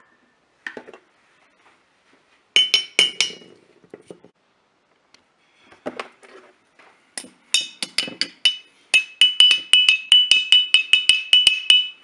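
Glass vodka bottles struck with a thin stick, each tap a bright ringing clink. There are a few scattered strikes early, a cluster in the middle, and a fast run of about five taps a second near the end, with a few duller knocks mixed in.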